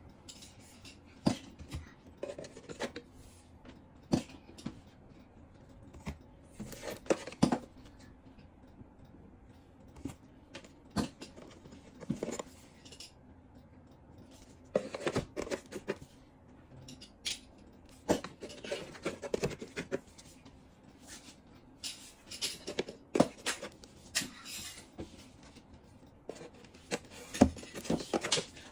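Irregular clicks and short clatters from boxed Zippo lighters being picked up and handled, cases knocking against each other.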